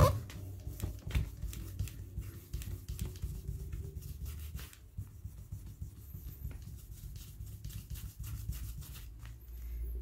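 Flannel cloth loaded with polishing compound being rubbed on the red scale of a Victorinox Huntsman pocketknife: faint, irregular rubbing strokes, with a sharp knock right at the start.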